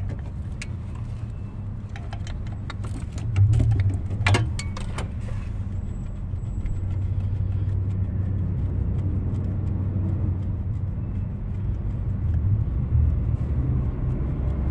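Sharp clicks and light rattles of plastic connectors and metal hose clamps being handled in an engine bay, mostly in the first few seconds, over a steady low rumble.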